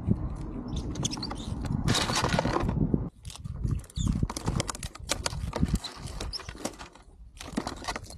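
Wind rumbling on the microphone, with many small clicks and scratches as ground squirrels handle biscuits and scrabble on a plastic toy truck and its bowl.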